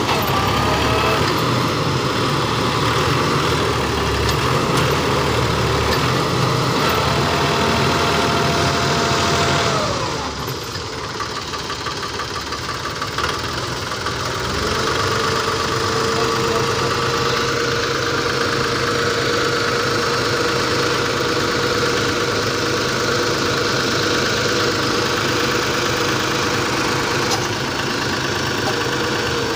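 Force Sanman 5000 tractor's diesel engine working hard under load as it strains to pull a heavily loaded soil trolley out of soft ground. About ten seconds in the revs drop back, and a few seconds later they come up again and hold steady.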